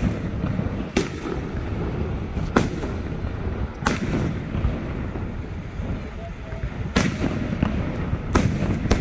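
Fireworks display: aerial shells bursting overhead, about five sharp bangs at irregular intervals over a steady low rumble.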